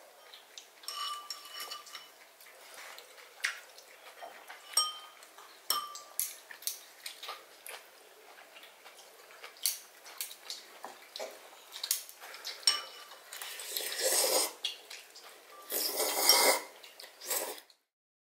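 Wooden chopsticks and spoon tapping and clinking against a metal noodle-soup bowl, scattered light knocks, some with a short metallic ring. Near the end come two longer, louder noisy stretches before the sound stops.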